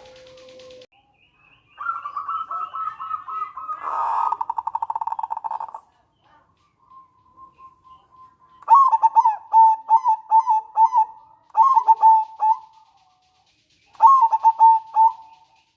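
Local zebra doves (perkutut) singing: a fast rattling trill from about two to six seconds in, then several phrases of short, clipped cooing notes repeated in quick series, the 'manggung' and 'nretek' song.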